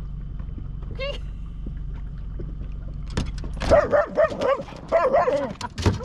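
A dog yelps once about a second in, then from about three and a half seconds breaks into a run of loud, high, yelping barks: alarm-barking at a seal in the water. Under it runs the steady low hum of the dinghy's outboard motor.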